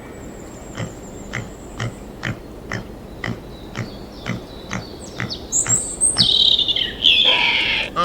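Short light knocks at about two a second, followed from about five and a half seconds in by louder high-pitched squealing from pigs.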